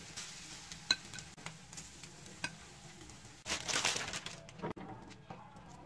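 Metal spatula clicking and scraping on a flat iron griddle (tawa) as fried egg is lifted off, over a faint sizzle. A few sharp ticks, then a louder scraping hiss for under a second about three and a half seconds in.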